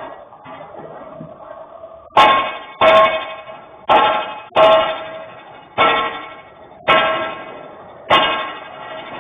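Metal struck hard, probably steel worked with a hammer: seven loud, ringing clangs at an uneven pace of roughly one a second, starting about two seconds in.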